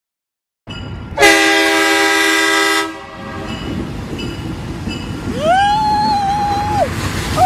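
Diesel freight locomotive's air horn sounding one steady chord-like blast of about two seconds, over the low rumble of the passing train. A few seconds later a long cry rises, holds and falls: a person yelling.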